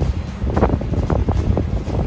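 Wind buffeting the microphone in irregular gusts, over music playing underneath.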